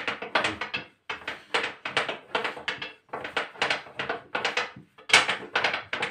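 Thin wooden rolling pin (oklava) pressed hard onto lahmacun dough on the countertop in quick back-and-forth strokes, each a short knock and rub, about two a second.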